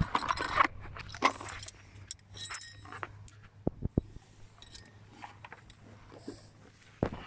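Small metal hardware clinking and rattling as it is handled: loose clicks and jingles, with a couple of duller knocks about four seconds in and near the end.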